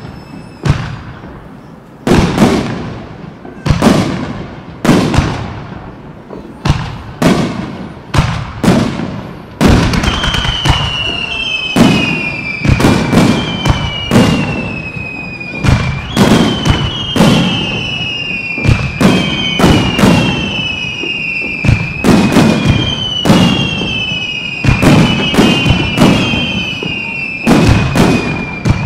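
Aerial firework shells bursting in a display, a sharp bang about once a second. From about ten seconds in the bangs come thicker and faster, mixed with repeated high whistles that each fall slightly in pitch.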